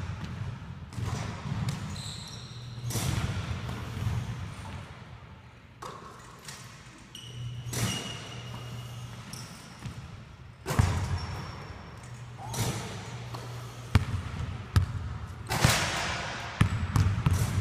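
Basketballs bouncing and thudding on a hardwood gym floor and off the backboard and rim, at irregular intervals and echoing through the large gym. A few short high sneaker squeaks come between the impacts.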